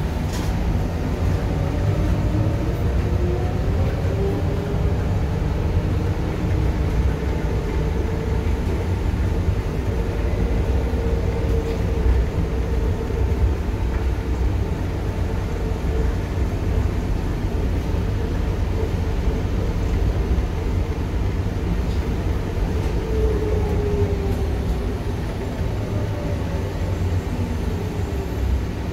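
Bombardier Innovia C801 rubber-tyred light rail train running, heard from inside the car: a steady low rumble of the ride, with a motor whine that glides up and down in pitch a few times.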